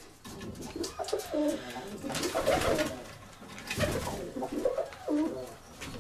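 Domestic pigeons cooing inside a pigeon loft, their warbling coos overlapping, with a couple of brief bursts of noise about two and a half and four seconds in.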